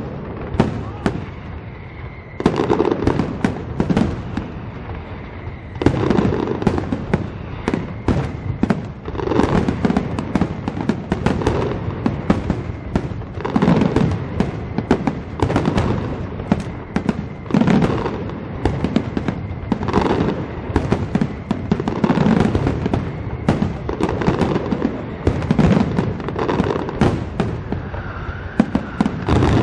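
Aerial firework shells bursting in a continuous barrage of bangs and crackles, with louder clusters of bursts about every two seconds.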